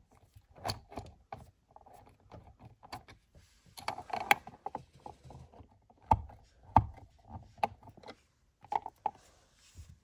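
Irregular small clicks, scrapes and a few sharper knocks of a screwdriver driving an electrical outlet's two mounting screws into its wall box.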